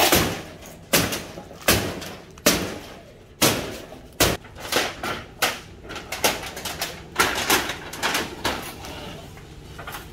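Wooden slats and corrugated metal sheeting being pulled apart and knocked loose with a long-handled tool during demolition of a stall: a string of irregular knocks and clattering crashes, about one to two a second, trailing off near the end.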